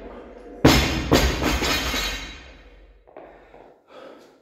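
Loaded barbell with bumper plates dropped onto the gym floor: one loud impact about half a second in, then a few bounces and rattles that die away over a couple of seconds. Short breathing sounds follow near the end.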